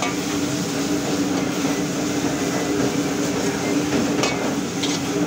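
Metal ladle stirring and scraping Maggi noodles in a steel wok, with a few sharp knocks of the ladle against the pan near the end, over a steady droning hum.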